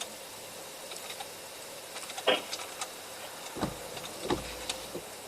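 A sharp click about two seconds in, then two dull thumps, with a faint steady tone behind them.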